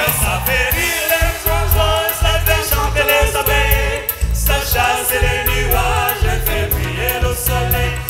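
A large choir with a lead singer singing an upbeat French song live over a band, with a steady bass line, keyboard and a regular high percussion beat.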